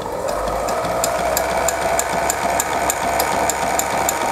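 Sailrite Ultrafeed LSZ-1 portable walking foot sewing machine starting up and running steadily, stitching a strip of leather piping closed under its built-in cording foot: a motor hum with the needle and walking feet ticking about four stitches a second.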